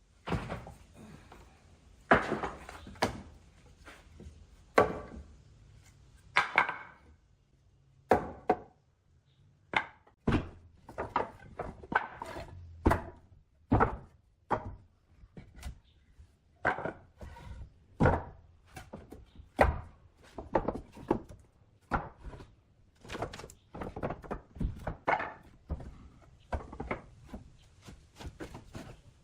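Wooden knocks and thunks at an irregular pace of about one or two a second, as pieces of wood are struck or handled in hand woodworking.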